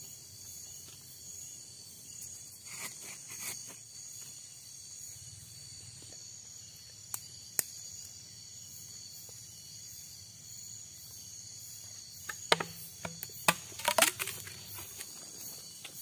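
Night insects such as crickets keep up a steady, high-pitched drone, with scattered sharp snaps and knocks of sticks and fire. The snaps are most frequent near the end.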